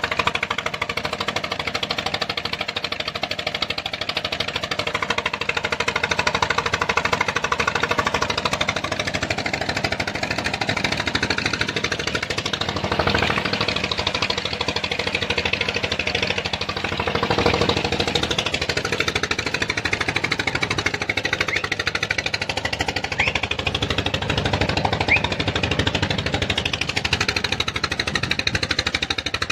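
Engine of a sand-mining suction pump running steadily with a rapid, even beat.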